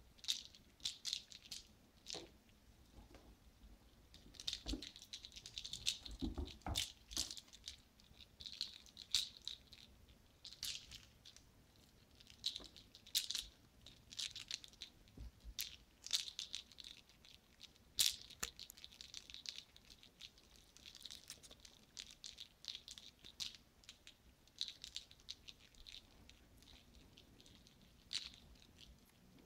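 Kittens playing: irregular runs of light rattling and clicking, with a few soft thumps.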